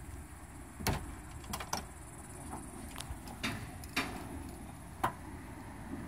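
Steady low outdoor background noise broken by several sharp clicks and taps at irregular intervals. The loudest come about a second in and again near five seconds.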